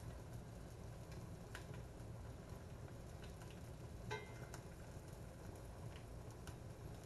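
Stingray wings frying in butter in a pan: faint, scattered pops and ticks over a steady low hum. A utensil clinks once against the pan about four seconds in.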